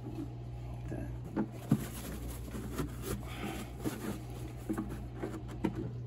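Hands scrubbing the inside of a Levoit LV600S humidifier's plastic water tank with a towel: faint rubbing with scattered light plastic clicks and knocks, over a steady low hum.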